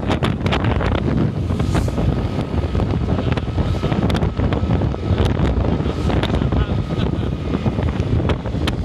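Heavy wind buffeting the microphone, crackling over a steady low rumble of passing road traffic.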